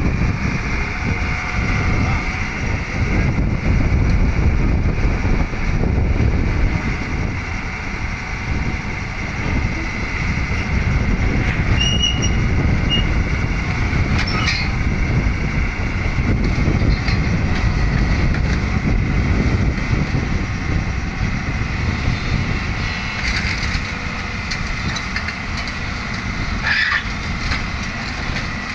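Excavator's diesel engine running under load with a steady low rumble, with brief high-pitched squeaks now and then as the machine works.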